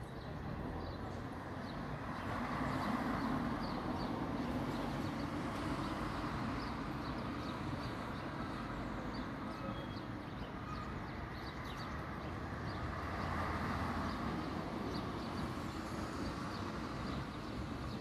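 Steady rumble of distant vehicles passing, swelling twice, with faint short chirps of small birds over it.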